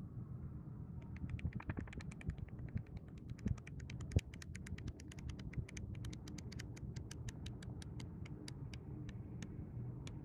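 Paper pages of a small flipbook flicking off the thumb one after another in a fast run of clicks, starting about a second in and thinning to a few separate flicks near the end, with a couple of soft knocks from handling the book.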